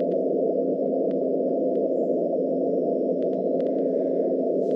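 Xiegu G90 HF transceiver's receiver hiss on 20 m, a steady band of static squeezed into a narrow low audio passband by the radio's filter, with a couple of faint steady tones in it and no Morse being copied.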